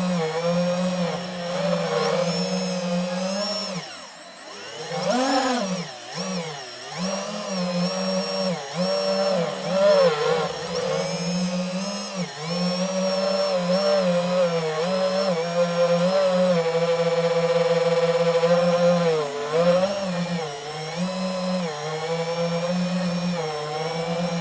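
DJI FPV drone's motors and propellers buzzing in flight, the pitch rising and falling as the throttle changes, with a brief drop and quick surge about four seconds in.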